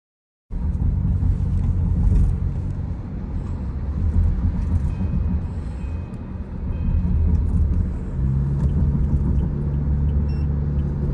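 Car cabin rumble: engine and road noise steady inside a moving taxi, with a few low steady hums under it.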